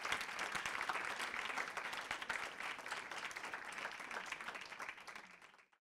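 Audience applause, a dense patter of many hands clapping that slowly dies down and is cut off abruptly near the end.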